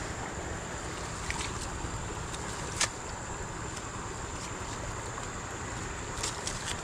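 Steady wind noise on the microphone with a thin, steady high tone, broken by a few short sharp clicks and rustles as a fish is handled into a mesh keep net. The sharpest click comes about three seconds in.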